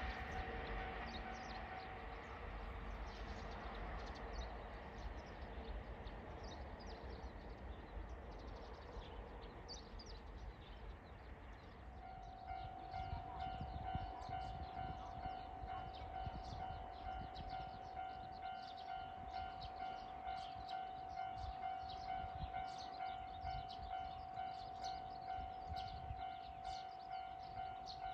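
The rumble of a passing train fades away. About twelve seconds in, an electronic railway warning alarm starts sounding: a steady ringing tone that pulses a little faster than once a second, warning that the next train is approaching.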